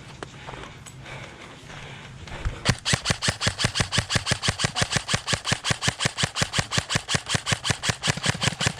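Airsoft electric rifle, an M4 CQB, firing on full auto: a long, even burst of about seven shots a second that starts nearly three seconds in and runs on without a break.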